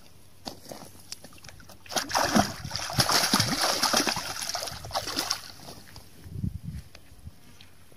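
A hooked fish thrashing and splashing at the surface as it is dragged in to the bank, loudest from about two seconds in until past five seconds. A few softer splashes follow as it lies in the shallow edge.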